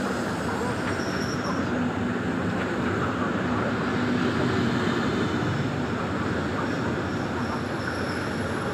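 PKP Intercity ED160 electric multiple unit, a Stadler FLIRT, rolling into the station: a steady rolling rumble and rush with a faint high whine over it.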